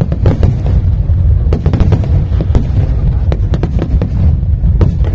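Fireworks display going off: many sharp bangs and crackles in quick clusters over a continuous low rumble.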